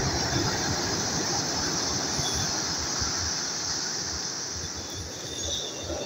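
Sea waves breaking and washing over a pebble beach: a steady hiss of surf with low rumbling underneath, easing a little about five seconds in.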